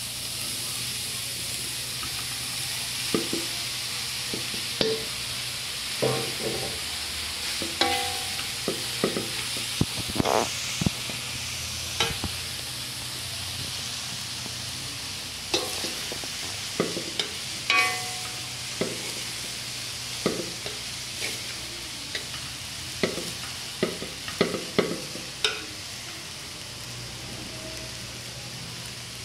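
Rice and vegetables frying with a steady sizzle in a metal pan while a metal spoon stirs and turns them, knocking and scraping against the pan in irregular clusters of clanks. The clanks thin out near the end.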